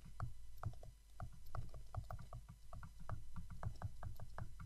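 A stylus tapping and scratching on a tablet screen as a word is handwritten: irregular small clicks, several a second.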